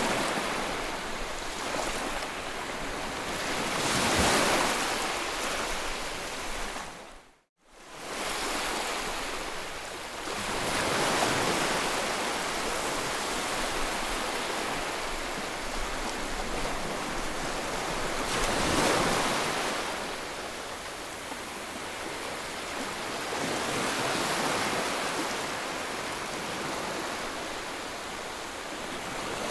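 Sea waves breaking and washing on a shore, the surf swelling and easing every several seconds. The sound drops out abruptly for about half a second early on, then comes back.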